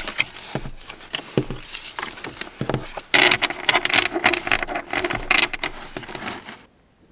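Brand-new playing cards being gathered up off a table with light taps and slides, then riffle-shuffled: a dense fluttering burst of card edges from about three seconds in that stops suddenly near the end.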